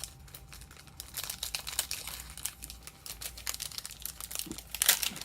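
Foil Pokémon booster pack wrapper crinkling as it is handled and torn open: a dense run of sharp crackles starting about a second in, loudest near the end.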